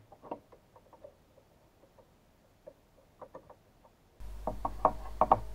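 Faint, scattered small clicks and ticks of pliers and a screwdriver working on a screw on a computer circuit board. About four seconds in, a steady low hum starts, with a few louder clicks over it.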